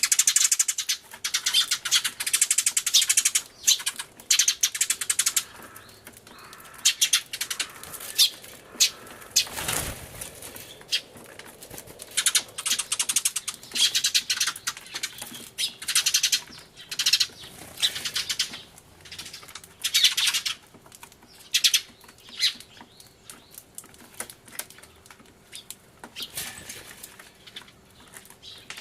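A flock of Eurasian tree sparrows chirping loudly and frantically in bursts a second or two long, separated by quieter gaps. About ten seconds in there is a short whoosh.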